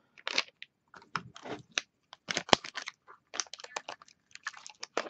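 Hands fitting the metal cover back onto a gutted 2.5-inch laptop hard drive: a run of irregular small clicks, taps and crinkles as the casing parts are handled and pressed together.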